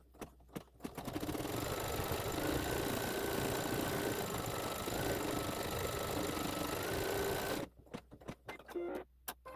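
Embroidery machine stitching, starting about a second in and stopping abruptly near the end, with scattered clicks before and after.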